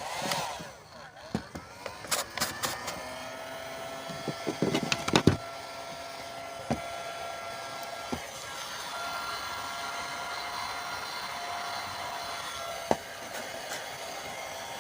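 Handheld hot-air blower running with a steady whirring hum, heating a freshly fitted battery cable terminal. Clicks and knocks of handling come through the first five seconds, the loudest just after five seconds.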